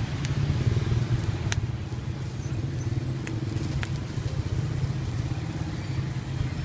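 A small engine running steadily at idle, a low, even hum, with a few sharp clicks scattered through it.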